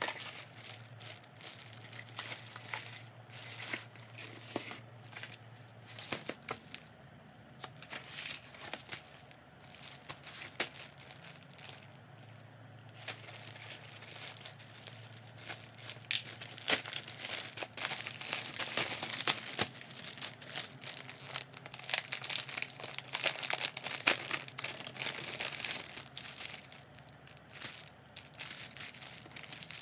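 Packaging crinkling and tearing as it is handled and opened, in irregular crackly bursts that get busier and louder about halfway through.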